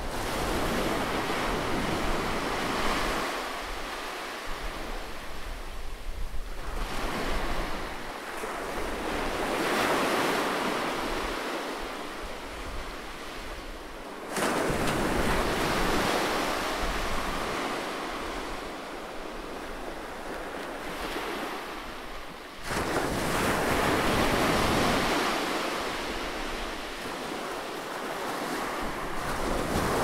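Small ocean waves breaking and washing up a sandy beach, the surf swelling and ebbing every few seconds. The level jumps up abruptly twice, about 14 and 23 seconds in.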